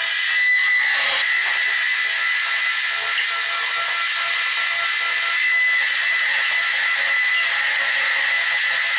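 Metal lathe running with its turning tool cutting a steel bar held between centres, a steady hiss with a thin high whine running through it. The bar is being turned to a taper with the tailstock set over.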